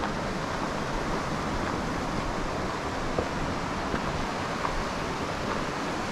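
Steady rush of falling water from a mountain waterfall, an even unbroken roar with no pitch to it.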